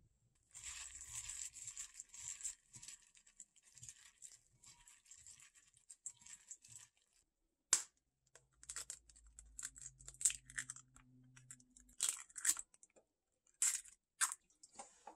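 A metal spoon stirring and scraping seasoned raw shrimp in a glass bowl for several seconds. It is followed by a series of sharp cracks and crunches as two eggshells are tapped and broken open over a plastic container, the loudest cracks near the end.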